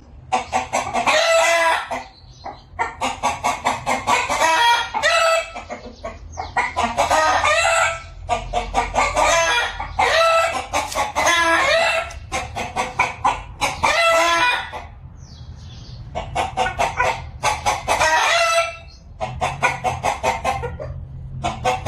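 Rooster crowing again and again, each crow lasting one to two seconds with short pauses between, mixed with hens clucking.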